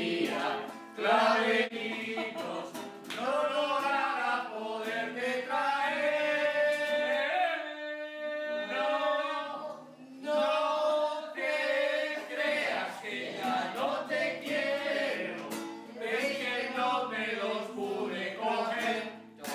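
A group of men singing a song together in Spanish, with a long held chord about eight seconds in.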